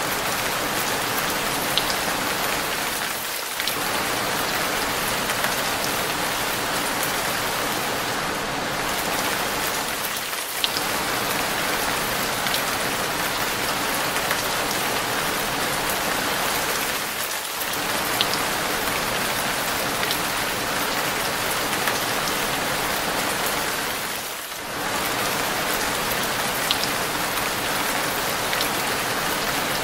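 Heavy rain falling steadily on a hard surface, a dense even hiss with a few individual drop ticks and a brief lull about every seven seconds.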